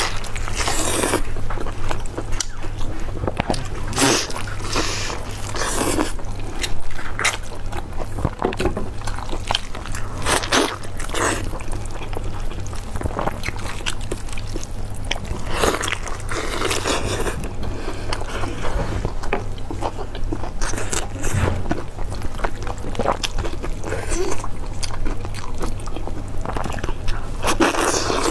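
Close-miked eating sounds: biting into, tearing and chewing a large sesame-glazed braised meat on the bone, in short irregular wet smacks and crackles over a low steady hum.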